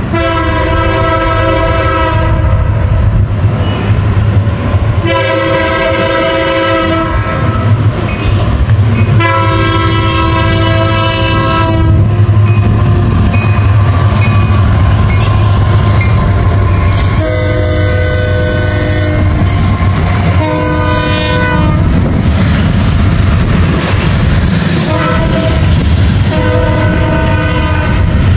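Nathan K5H five-chime air horn on a CSX SD70 locomotive sounding a series of long blasts and a few shorter ones for a grade crossing, over the steady low drone of the diesel locomotives. Near the end, loaded freight hopper cars roll past with wheel clatter on the rails.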